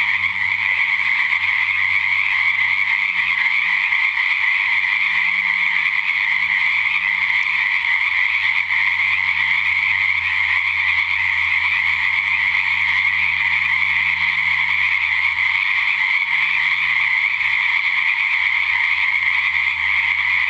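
A chorus of many frogs calling at once at a pond after dark, a loud, steady, overlapping din with no breaks.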